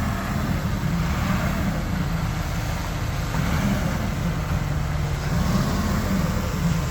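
Heavy diesel earthmoving machinery running, a steady low engine drone that swells slightly now and then, from the bulldozer and dump trucks working the fill.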